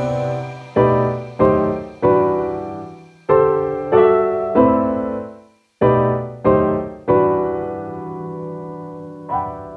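Music: a keyboard playing slow chords, each struck and left to fade, about ten in all, with the last ones ringing out long near the end.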